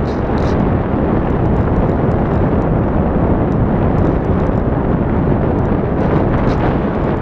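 Loud, steady rush of wind over the microphone of a camera mounted on a model glider in flight, with no motor tone.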